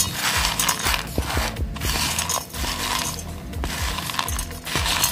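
Handfuls of hard roasted chana dal, with coconut pieces and green chillies, dropped into a stainless-steel mixer jar; the dry lentils rattle and click against the metal in several separate pourings.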